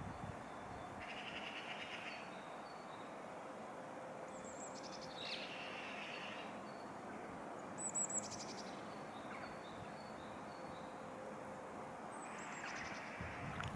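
Small birds calling at intervals: short high descending notes that break into quick rattling trills, along with buzzy chirps, over a steady background hiss.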